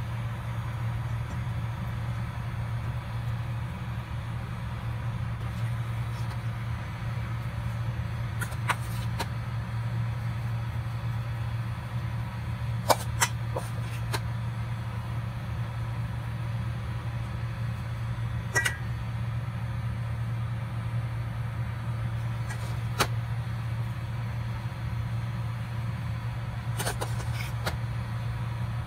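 A steady low hum runs throughout, with a few short sharp clicks and taps scattered through it, typical of a metal spoon knocking against a steel bowl and the dough board as filling is spread.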